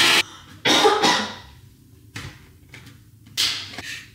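Electric hand mixer beating batter, cutting off abruptly just after the start; then two short cough-like bursts, one about a second in and one near the end.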